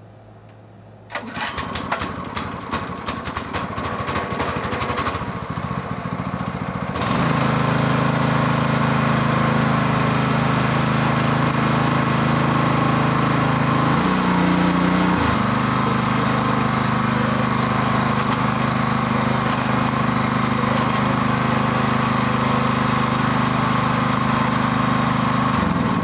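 Small single-cylinder 212 cc Honda-clone gas engine on a pressure washer starting about a second in, running unevenly for several seconds, then settling into a steady run with a brief change in pitch midway, and shutting off suddenly near the end. It is running with its low-oil sensor wire unplugged so the oil float can free itself and the engine can run.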